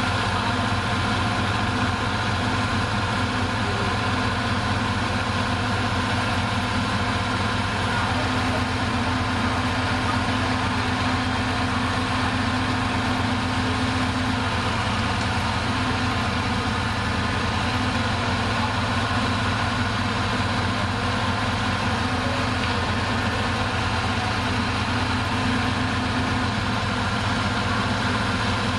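Bulldozer's diesel engine idling steadily.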